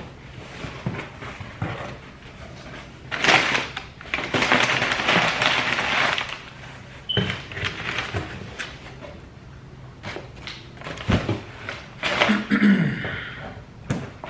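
Cardboard shipping box being opened by hand: flaps scraping and brown packing paper crinkling, loudest in a long stretch of rustling in the first half, with a few knocks and scrapes later.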